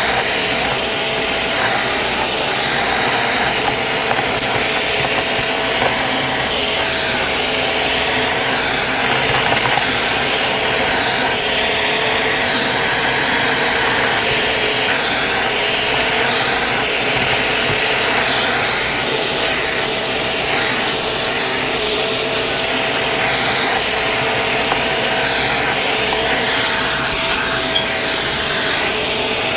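Shark vacuum running with its crevice tool, a steady motor whine, as it sucks confetti and sequins off carpet with a crunching rattle of debris going up the nozzle.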